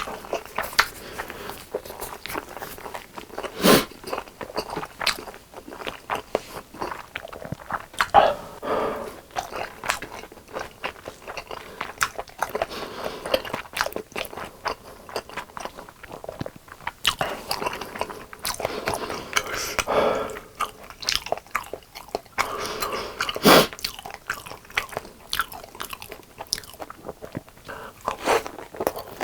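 Close-miked eating of crispy fried chicken: crunchy bites and chewing, with a few sharper, louder crunches standing out among steady mouth sounds.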